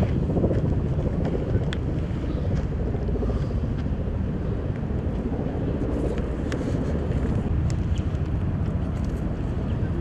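Steady low rumbling outdoor noise with a few faint scattered ticks.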